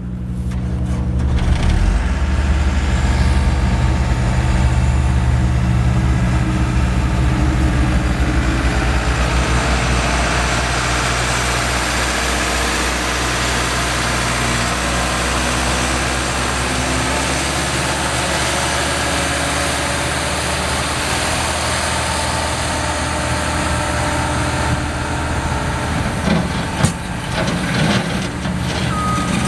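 Case 430 skid steer's diesel engine running steadily, swelling in level over the first couple of seconds, with a few sharp knocks near the end.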